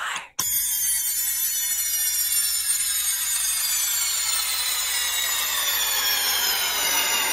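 A bright, dense electronic tone cluster starts about half a second in and glides slowly downward in pitch for about seven seconds at a steady level, then fades out: a studio sound effect closing a rock recording.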